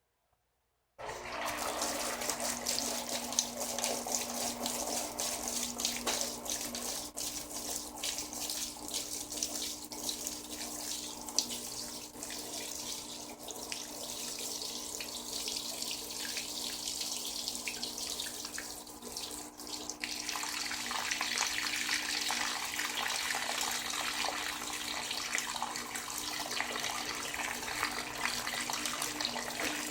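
Water rushing into the tub of a Frigidaire Gallery Series top-loading washing machine as it fills, starting suddenly about a second in over a steady low hum. The rush turns brighter and fuller at about 20 seconds.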